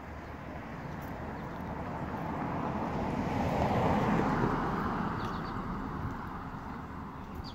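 A vehicle passing by: a rush of noise that swells to a peak about four seconds in and then fades away.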